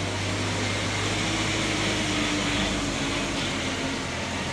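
A loaded sugarcane truck's engine running steadily as it drives past and away, with a low hum and tyre noise on the road; the engine note falls slightly partway through.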